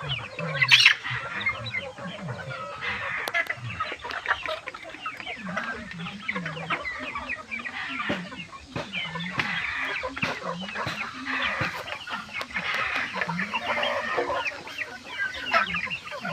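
A flock of chickens clucking and calling over one another, with many short high chirps and lower clucks overlapping, and a brief sharp noise about a second in.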